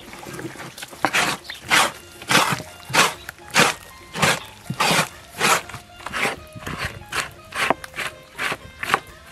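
Repeated scraping strokes of a blade over scalded beef tripe, about one and a half to two strokes a second, stripping off the dark stomach lining, with faint background music.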